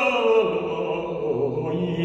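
Slow, chant-like singing in long held notes, with more than one pitch sounding at once; the notes step down about half a second in and rise again near the end.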